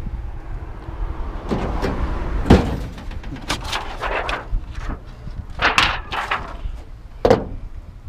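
Sheet-metal clanks and bangs of a discarded washing machine being grabbed and moved: about half a dozen sharp knocks spread over several seconds, the loudest a little over two seconds in and again near the end.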